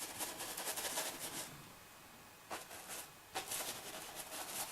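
Paintbrush scrubbing and dabbing paint on the painting surface in rapid short strokes. The strokes stop about a second and a half in and pick up again past the middle.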